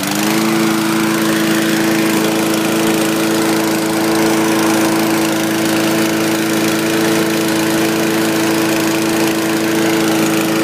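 Snapper 21-inch commercial push mower's Honda GXV160 single-cylinder overhead-valve engine, just pull-started, coming up to speed in the first half second and then running steadily, pretty quiet.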